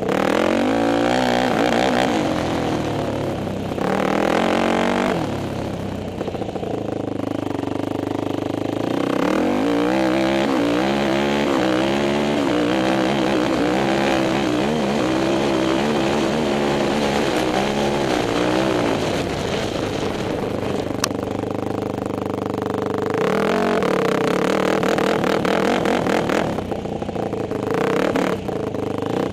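Kawasaki KFX 450R ATV's single-cylinder four-stroke engine being ridden hard, revving up and backing off again and again. Its pitch climbs several times: about four seconds in, repeatedly between about nine and nineteen seconds, and again near the end.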